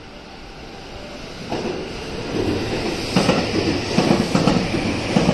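Electric commuter train running past on the tracks, its rumble building and then, about three seconds in, its wheels clacking over the rail joints in a fast, even rhythm.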